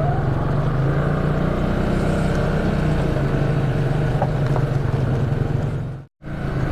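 ATV engine running steadily under way, with a brief break in the sound near the end.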